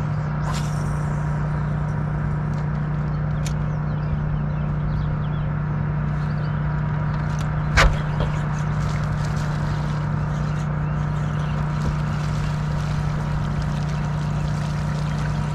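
Steady low hum of an electric boat motor running, with a single sharp click about eight seconds in.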